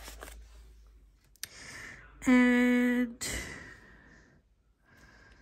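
A woman's voice holds one drawn-out "and…" on a steady pitch, then lets out a short breathy sigh. A single sharp click comes about one and a half seconds in.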